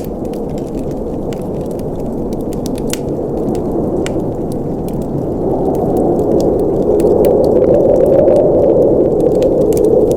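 Wood fire burning in a fireplace: a steady rush of flames with frequent sharp crackles and pops from the burning wood. The rush swells louder about halfway through.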